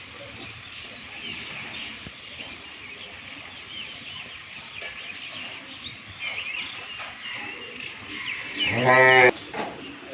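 A cow moos once, briefly, near the end. Small birds chirp throughout in the background.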